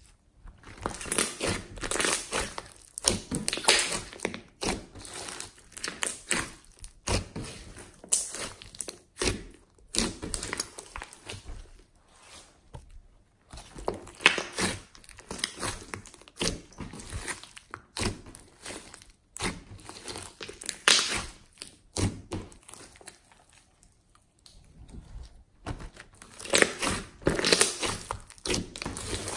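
Hands squeezing, stretching and kneading a large mass of glossy slime: irregular sticky squishing and crackling that comes in uneven clusters, with a couple of brief lulls.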